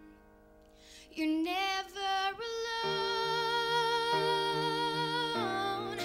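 A young woman singing a slow ballad live into a handheld microphone over soft sustained accompaniment. Her voice comes in about a second in and holds one long note through the middle.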